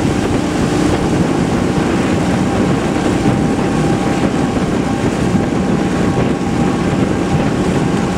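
Outboard motor running steadily, with wind buffeting the microphone.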